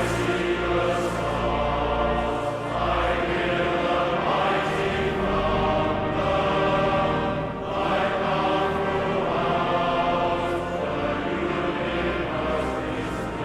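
Church singing: a group of voices sings a slow piece in phrases of a few seconds each, with sustained accompaniment underneath.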